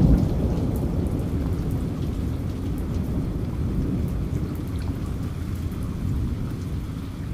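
Thunderstorm sound: a dense low rumble of thunder with rain crackling faintly above it, slowly fading.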